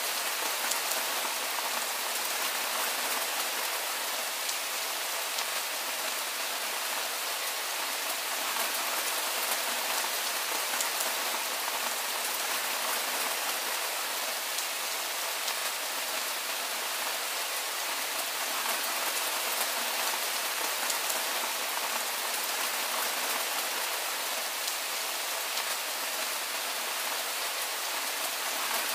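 Steady soft rain falling: an even hiss, mostly high-pitched, with faint ticks of individual drops.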